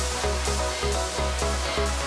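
Electronic dance music with a steady bass beat and a repeating synth figure.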